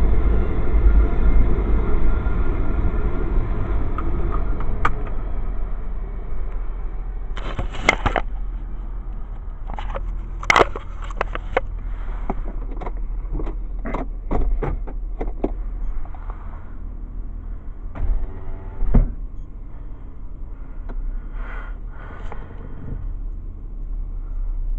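Car noise: a steady low rumble that eases off over the first few seconds, then a run of sharp clicks and knocks, with a couple more bumps later.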